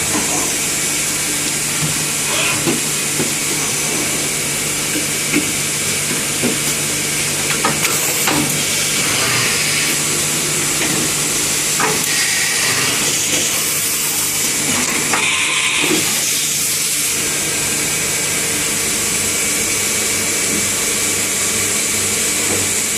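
Steady machine noise: a constant hiss over a low hum, with scattered clicks and knocks.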